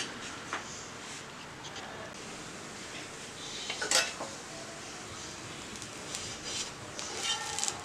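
Metal spatula clinking and scraping against a nonstick tawa as battered bread slices are turned and stood on their edges, with a few light clicks and one sharp clink about four seconds in.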